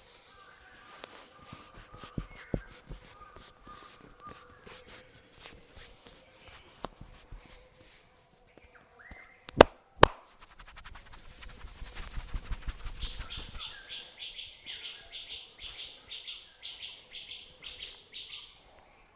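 Head and neck massage: scattered clicks, then two sharp, loud cracks about half a second apart midway, followed by a few seconds of rapid rhythmic tapping. A bird chirps in a quick repeated run through the second half.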